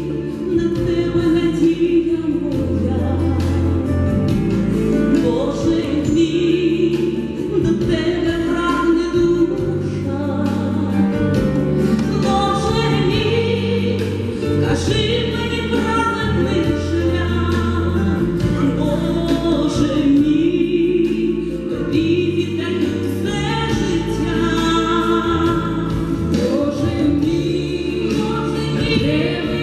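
Two women singing a religious song together through microphones and a PA, over accompaniment with sustained low notes, continuing without a break.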